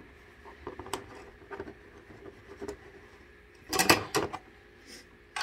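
Small open-end wrench working a hex nut on the steel frame of a portable basketball hoop: light metal clicks as it turns, with a louder clatter of metal on metal about four seconds in as the wrench is repositioned on the nut.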